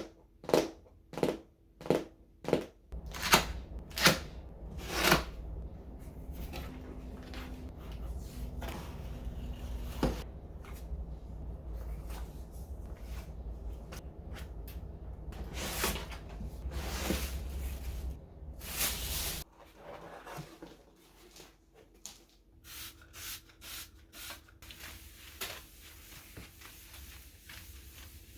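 Objects being handled and set down indoors, a string of sharp knocks and clicks, with a steady low rumble through the middle.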